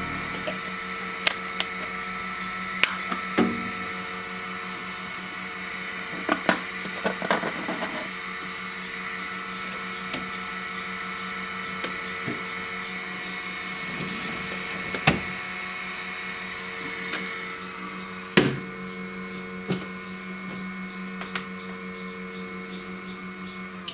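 Scattered clicks and knocks as the flexible plastic build plate of a Flashforge Adventurer 3 3D printer is handled and set back onto the printer's bed, over a steady hum. The sharpest knocks come about 15 and 18 seconds in.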